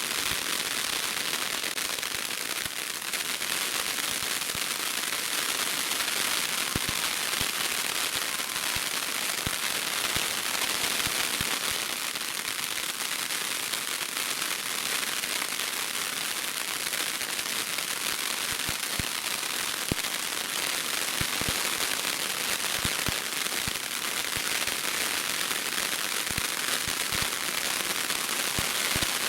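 Ground fountain fireworks spraying sparks: a steady hiss with a dense spatter of small crackles and pops throughout.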